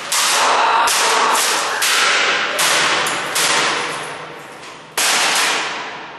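A computer keyboard being smashed against a concrete floor: about seven hard plastic cracks and bangs, most of them in the first three and a half seconds and one more about five seconds in, each ringing out in a long echo off the bare concrete walls.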